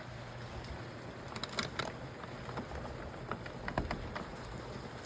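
A few short, faint clicks scattered over a steady rushing background noise, heard while a freshly re-batteried key fob is being tried out.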